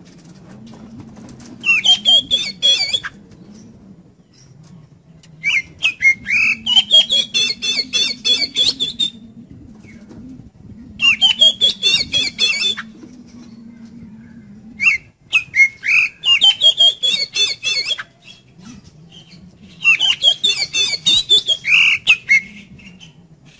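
Oriental magpie-robin (kacer) singing in five bursts a few seconds apart, each a rapid run of harsh chattering notes mixed with clear whistles.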